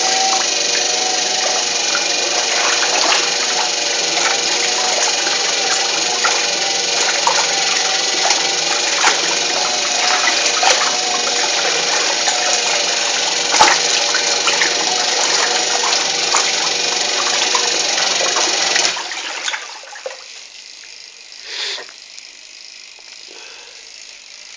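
Mueller tanquinho agitator washing machine running with water churning, a faint steady hum and irregular clicks and knocks: the strange noise that started this week, though the machine still washes normally. The machine stops about nineteen seconds in, leaving a much quieter stretch.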